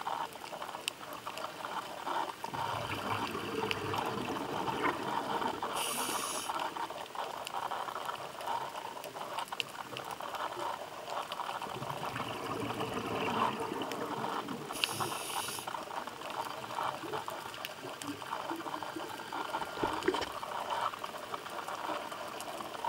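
Scuba diver breathing through a regulator underwater: short hissing inhalations about six and fifteen seconds in, with longer bubbling exhalations between them.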